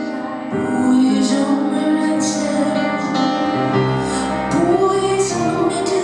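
Live music: a woman singing, her held notes gliding between pitches, over sustained keyboard accompaniment.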